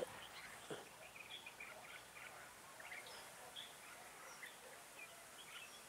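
Faint, scattered short chirps of red-whiskered bulbuls.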